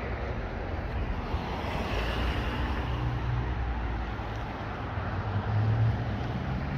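Outdoor street noise: a vehicle engine's low hum passing, louder about five and a half seconds in, with wind rumbling on the microphone.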